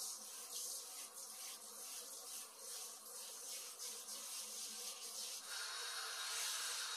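A faint, high, pulsing hiss, then about five and a half seconds in a steady shower of water from a watering can starts falling onto the bonsai pot's soil and leaves.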